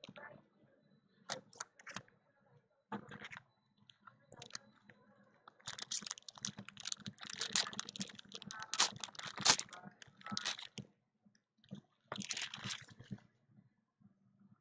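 Hands handling trading cards and their packaging: a run of short clicks, scrapes and rustles, busiest from about six to ten seconds in, with another brief rustle about twelve seconds in.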